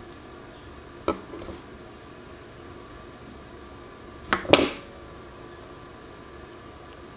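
Sharp clicks of small hard parts being handled: one about a second in with a brief rattle after it, then a quick double click near the middle that rings briefly, over a steady background hum.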